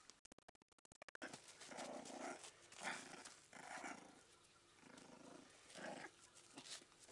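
Jack Russell terrier puppy growling in about five short bursts while tugging at a toy in play.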